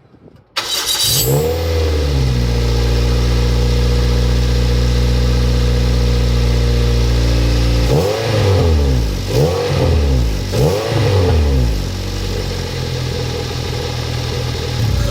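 Toyota MR-S 1.8-litre inline-four breathing through a motorcycle silencer used as its muffler, packed with stainless-steel scrubber wool. It starts about half a second in, flares briefly, and settles to a steady idle. About eight seconds in it is revved three times in quick succession, then returns to idle.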